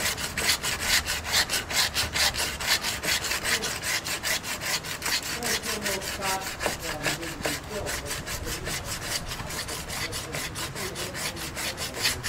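Hand sanding with a sanding block and sandpaper, in rapid back-and-forth strokes of about five a second, cutting down hard fiberglass bonding material where it meets a steel rear fender.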